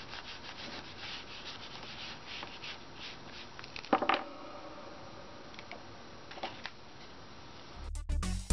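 Foam ink-blending tool rubbing Distress Ink over a gessoed paper page in quick, repeated scratchy strokes. About four seconds in comes a single sharp knock, and music starts abruptly near the end.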